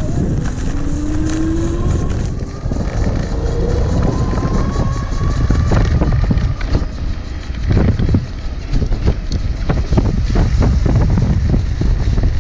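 Rear hub motor of a 48 V electric bike whining under throttle, its pitch rising slowly as it speeds up, over wind buffeting the microphone and tyre rumble on a dirt trail. From about halfway on, a quick run of rattles and knocks as the bike goes over rough ground.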